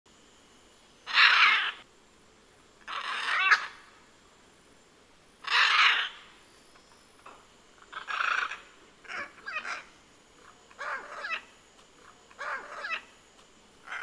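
Scarlet macaws squawking harshly: three loud, drawn-out squawks in the first six seconds, then a run of shorter, quieter squawks a second or so apart.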